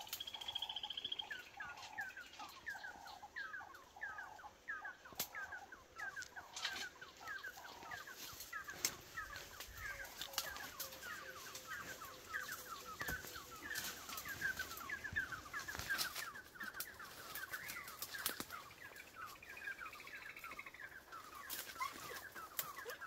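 Birds calling in rapid series of short falling chirps, several a second, with a lower repeated note in the first few seconds. Scattered sharp snaps of twigs and brush as someone pushes through thick bush.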